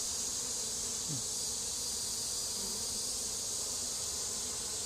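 Honey bees buzzing steadily around an open hive, a continuous hum over a steady high hiss.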